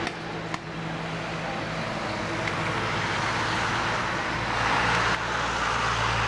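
Boeing 787-8's General Electric GEnx-1B turbofans at taxi power: a steady jet engine rumble and whine as the airliner rolls along the taxiway, growing somewhat louder about four seconds in.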